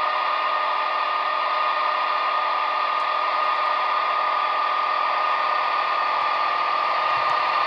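Class 86 electric locomotive sound from a Coastal DCC sound project on an ESU LokSound 5 decoder, played through the speaker of a Heljan OO-gauge Class 86 model running on the layout: a steady whirring drone with one strong high whine over a hiss.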